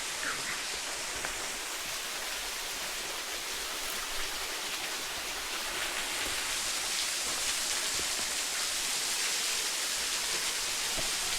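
Waterfall splashing steadily, a constant hiss of falling water that grows a little louder about halfway through.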